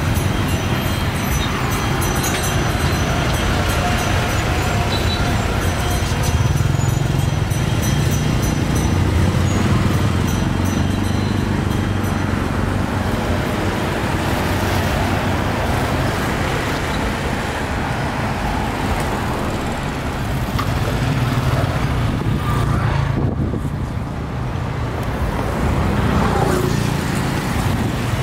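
Steady road traffic noise: motor vehicles running past, with a continuous low rumble.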